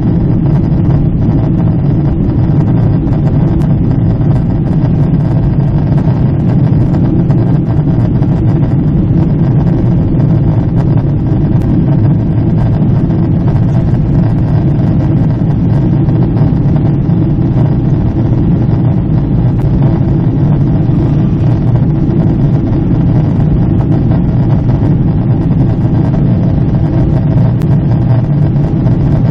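Steady low drone of a Boeing 777 in cruise, heard inside the cabin: engine and airflow noise, even and unchanging.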